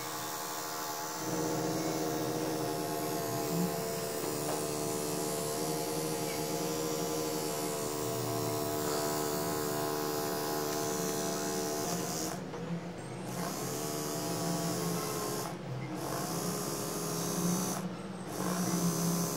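Small homemade DC motor running steadily, its coil rotor spinning with a steady buzzing whine from the paperclip brush contacts. The sound cuts out briefly three times in the second half.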